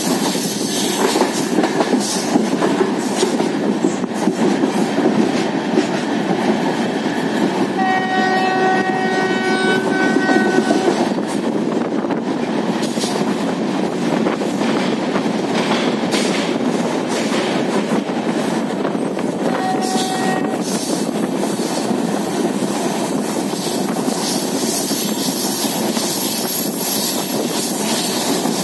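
Train running at speed, heard from the open coach door: steady wheel and wind noise with the clickety-clack of rail joints, passing through a rock tunnel midway. A locomotive horn sounds one long blast about eight seconds in and a short blast near twenty seconds.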